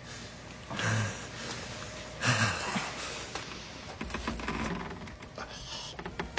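A person's heavy breathing: two breathy, voiced gasps about a second and a half apart, then a run of faint clicks.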